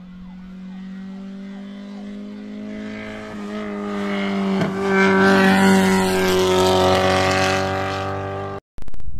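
Race car's engine at speed, growing louder as it approaches and passes close by, loudest from about five seconds in. The sound cuts off abruptly near the end.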